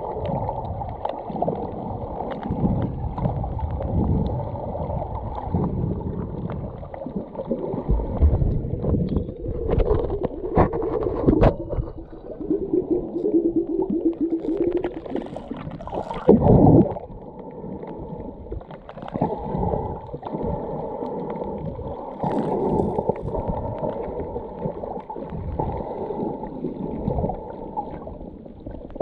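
Muffled underwater sound from an action camera just below the sea surface: water sloshing and gurgling around the camera, with a couple of sharp knocks and a short wavering tone near the middle.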